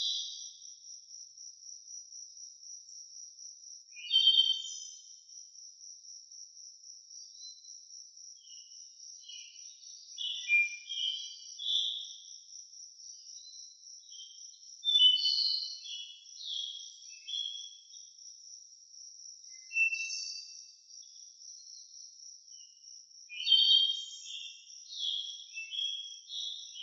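Steady, evenly pulsing high insect trill, like a cricket, with clusters of short high bird chirps and twitters every few seconds that are the loudest sounds.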